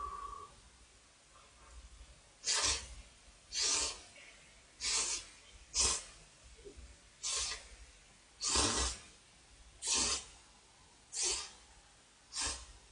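A person slurping thick instant ramyeon noodles from a bowl: about nine short, hissy slurps, roughly one a second, starting a couple of seconds in.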